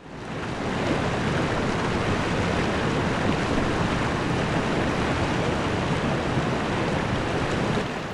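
River water rushing, a steady full noise that fades up over the first second and eases slightly near the end.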